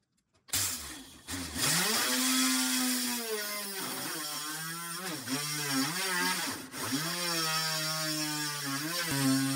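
Homemade mini drill press's small DC motor switching on about half a second in and spinning up to a steady whine, then drilling a hole in thin plywood with a Forstner bit, its pitch sagging briefly several times as the bit bites into the wood.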